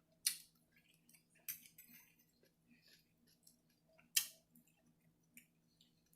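Close-up chewing of crunchy stir-fried vegetables and shrimp, with three louder sharp crunches and faint mouth clicks between.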